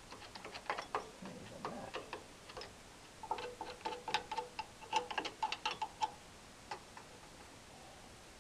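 A screwdriver digging and picking at packed mouse-nest debris in a Murray lawn tractor's engine, giving irregular clicks and scrapes of metal on metal. Midway the clicks come fast, with a faint metallic ring, then die out about six seconds in apart from one last click.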